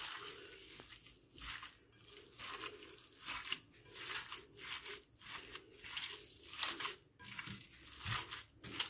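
A hand kneading and squeezing raw minced meat mixed with chopped onion and garlic in a plate: soft, wet squishing strokes, irregular, about one or two a second, while the kofta mixture is worked together.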